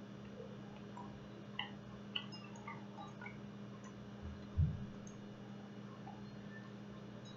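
Faint small clicks and ticks of a person eating a cookie, over a steady low hum, with one soft low thump about halfway through.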